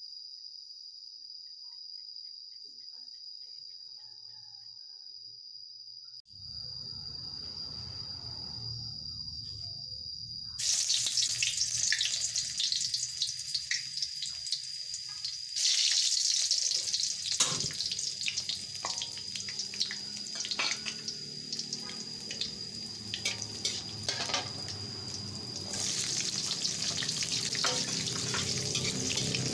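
A steady high-pitched trill at first. About ten seconds in, hot oil in a steel wok starts sizzling and crackling, and it gets louder twice, at about 15 and 26 seconds in.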